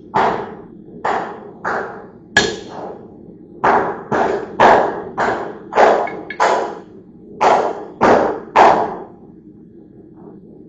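Hand hammer striking metal, about thirteen blows at an uneven pace, each with a short ring, stopping about nine seconds in.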